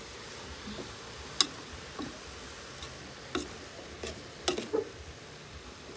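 A metal spoon clinking irregularly against the side of a steel cooking pot while shredded cabbage is stirred, over a faint steady hiss from the cooking.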